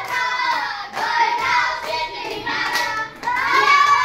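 Children singing, with hand-clapping along.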